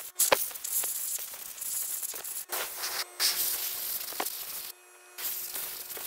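Compressed air from an air-compressor hose hissing in several bursts with short breaks, blowing carbon buildup out of an electric golf cart motor's armature and housing.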